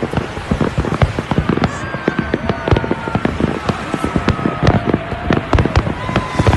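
Fireworks display: a dense, continuous run of bangs and crackles from many shells bursting, several each second.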